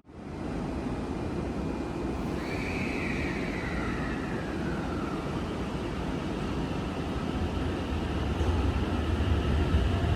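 A train running at a station platform: a steady rumble with a whine that falls in pitch from about two seconds in to about five seconds, and the low rumble growing louder near the end.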